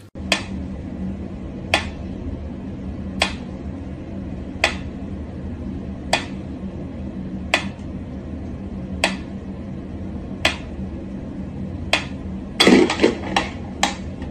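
Mechanical pyramid metronome ticking slowly, one sharp tick about every one and a half seconds. Near the end comes a quick burst of louder knocks and clatter.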